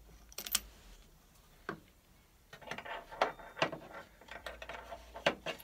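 Irregular metal clicks and clinks from a Myford lathe's three-jaw chuck as a pin is set and tightened in its jaws. The clicks are scattered at first, come thicker in the middle, and end with two sharp ones.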